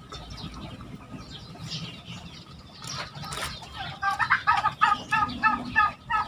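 Barnyard fowl clucking: a quick run of repeated short calls, about four or five a second, starting about four seconds in after a few seconds of only faint sounds.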